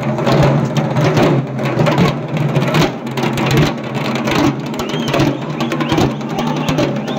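Procession drums beaten in quick, irregular strokes, several a second, over a steady low hum.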